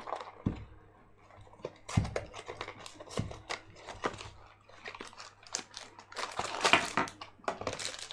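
A few dull knocks as stand parts are handled, then plastic packaging crinkling and rustling, loudest near the end.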